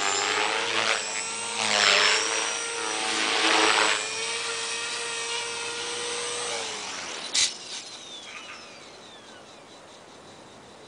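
Align T-Rex 450 Sport electric RC helicopter in flight: a steady rotor and motor whine that swells twice as it moves about. About seven seconds in, after it has set down on the grass, the whine drops in pitch and winds down, with a sharp click and a falling whine as the rotor spools down.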